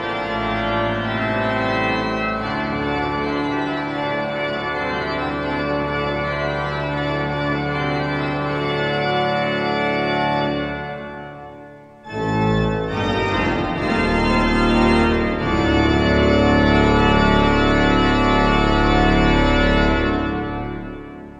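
Organ music: long held full chords that die away about halfway through, then a new loud passage of held chords that fades out at the end.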